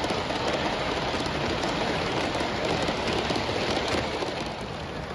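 Large-scale model freight cars rolling along model railway track, a steady dense clatter of many small wheels on the rails, easing slightly near the end.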